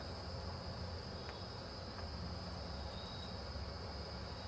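Steady high-pitched insect chirring, crickets by its sound, over a low steady background hum.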